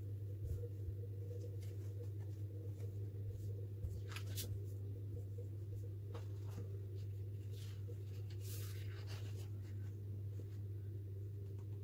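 A sheet of paper handled on a table: a few brief rustles and scrapes about four, six and a half, and eight to nine seconds in. Under them runs a steady low hum.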